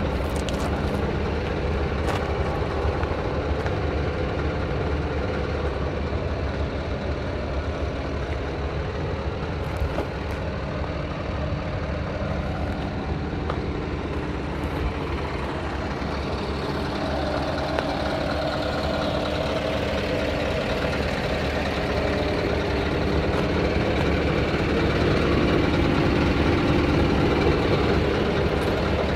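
Diesel engine of a Scania R tipper truck idling steadily, getting somewhat louder in the second half.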